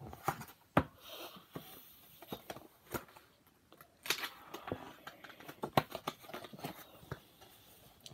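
A picture book and a paper sheet being handled and their pages turned: paper rustling with scattered small taps and clicks.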